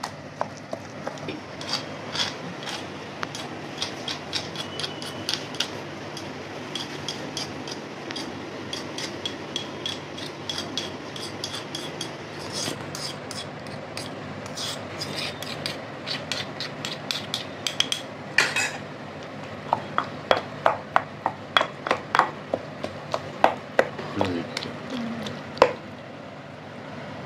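Stone pestle pounding and grinding ivy gourd (tindora) and tomato chutney in a granite stone mortar: a steady run of knocks, about two a second, of stone on stone through the wet mash. A metal spoon scrapes the mash down the mortar sides now and then.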